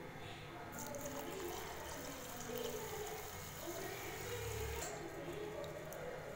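Water pouring into a steel bowl of raw rice to rinse it, stopping about five seconds in, then a hand swishing the rice in the water.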